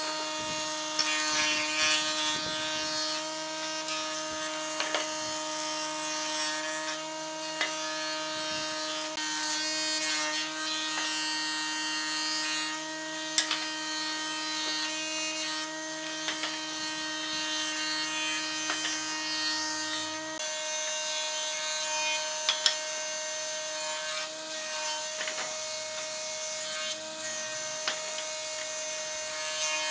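Combination planer-thicknesser running, its cutter head planing wooden strips: a steady motor hum under the rough hiss of the knives chewing wood, with occasional short knocks as strips feed through and drop out.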